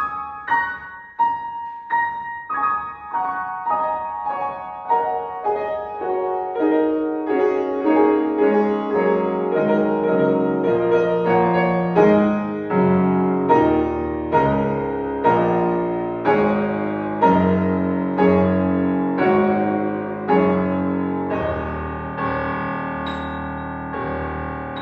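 Solo piano playing a slow passage in a piece modelled on classical Thai instruments: evenly struck notes step down in pitch through the first half, then settle into repeated low notes and chords, ending on a held chord that slowly fades.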